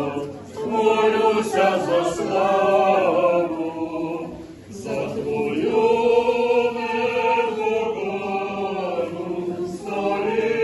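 Orthodox church choir singing liturgical chant a cappella, in long held phrases with brief breaks about half a second in and near five seconds.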